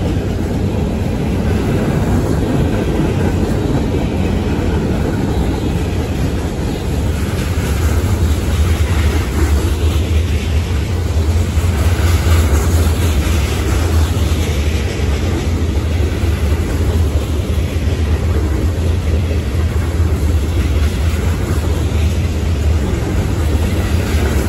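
Freight train's covered hopper cars rolling past close by: a steady, loud rumble of steel wheels on rail.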